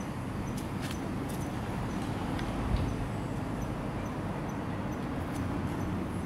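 Steady low rumble of road traffic, with a few light clicks and a single thump a little under three seconds in.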